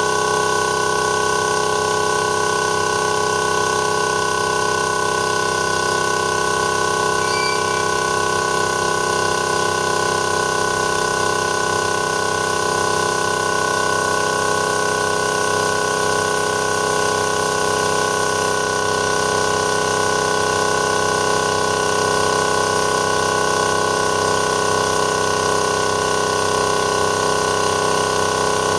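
12-volt DC reciprocating-piston air compressor (TWO STAR HT25L-15A) running steadily while it pumps up its air tank. It makes a constant, even motor-and-piston drone as the tank pressure climbs past 5 kg/cm².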